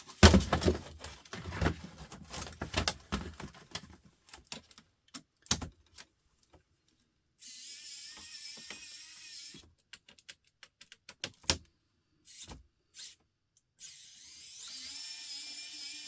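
Laptop parts being handled and pried apart: a run of dense plastic and metal clicks and knocks, then scattered clicks. Twice, a small electric tool's motor runs steadily for about two seconds, once about halfway through and again near the end.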